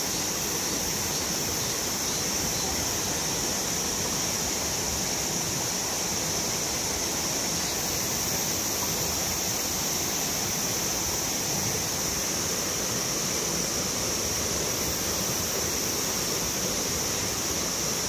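Mountain stream rushing steadily over granite rapids, with a steady high-pitched drone of cicadas above it.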